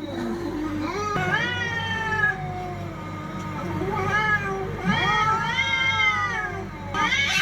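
Cats yowling in a fight: long, drawn-out caterwauls that rise and fall in pitch, several in a row, with a lower held wail under the higher calls early on.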